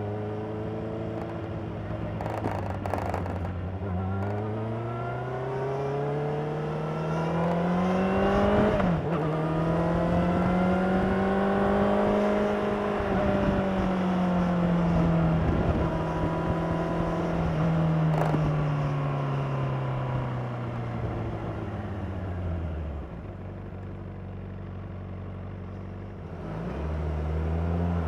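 2016 Honda CBR600RR's inline-four engine through its stock exhaust. It climbs through the revs with a quick dip in pitch about nine seconds in, like a gear change, holds high revs, then winds down steadily to a low, quieter drone before revving up again near the end.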